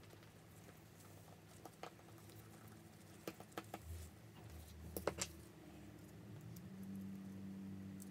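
Faint, scattered small clicks and taps of parts and a tool being handled on an iPhone 6 display assembly on a silicone repair mat, loudest about five seconds in. A low steady hum comes in about six and a half seconds in.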